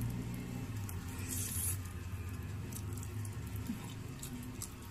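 Close-up eating sounds: biting and chewing grilled chicken, with small wet mouth clicks and a short hiss about a second and a half in, over a low steady hum.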